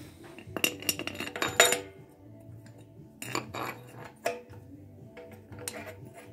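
Metal head bolts clinking against the compressor's cylinder head as they are set in their holes and started by hand: a quick cluster of clinks in the first two seconds, then a few scattered ones.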